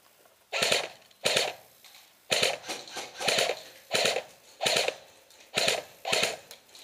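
Airsoft rifle firing eight short bursts of a few shots each, roughly one burst every three-quarters of a second.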